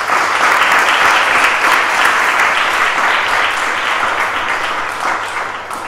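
Audience applauding at the close of a talk: many hands clapping together in a dense, even clatter that eases slightly toward the end.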